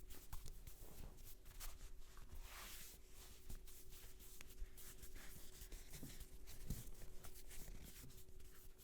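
Faint scratchy rustling of fingers rubbing and scratching through hair and over the scalp in a head massage, with many small clicks and ticks.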